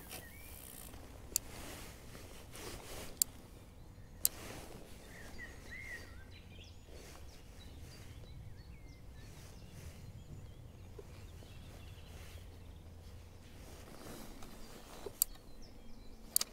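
Quiet open-air ambience over still water with a low steady rumble, a few faint bird chirps about five seconds in, and several sharp clicks as the fishing rod and spinning reel are handled, two of them close together near the end.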